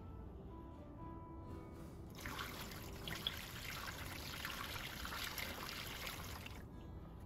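Windshield washer fluid poured from a jug through a funnel into the washer reservoir: a trickling, splashing pour that starts about two seconds in and stops shortly before the end.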